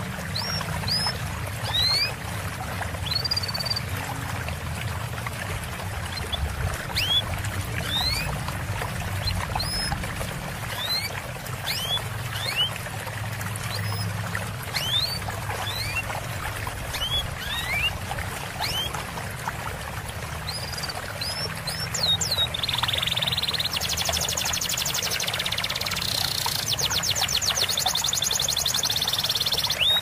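Small songbirds giving short, thin, rising chirps about once a second, changing near the end to a fast, buzzy trill, over a steady trickle of running water.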